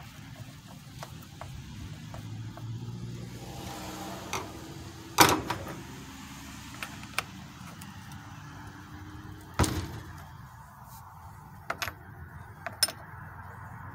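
Hand tools and chainsaw parts knocking and clicking on a workbench while the chain of a Stihl MS-192T is tensioned with a screwdriver and the bar's side cover is handled. There are two sharp knocks, about five and nine and a half seconds in, and lighter clicks between and after them.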